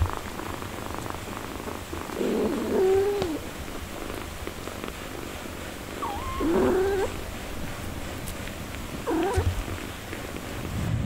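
A nursing mother cat and her newborn kittens: steady low purring, with three short, wavering mews about two, six and nine seconds in.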